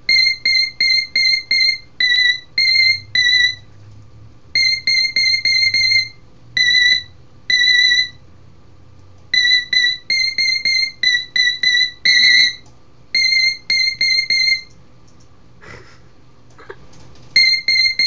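Electronic keyboard playing short, high-pitched notes in quick runs of four to six, on two or three slightly different pitches, with pauses of a second or two between runs.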